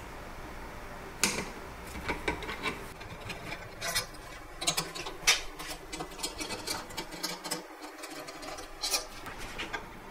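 A wrench and brass air fittings clicking and clinking as they are worked on a copper intercooler: a string of irregular sharp metallic clicks, loudest about five seconds in, over a steady faint hiss.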